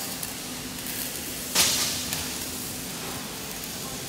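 Steady factory hall background noise with a faint hum, and about one and a half seconds in, a sudden short burst of hissing that fades within half a second.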